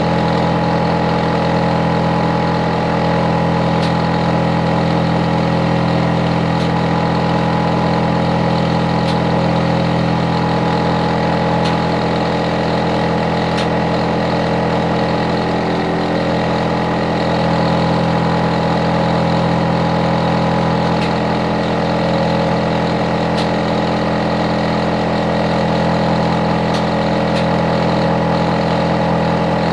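Hitachi air conditioner outdoor unit running steadily: the compressor and fan drone with a stack of steady humming tones, loud enough to be a noise nuisance to the neighbours.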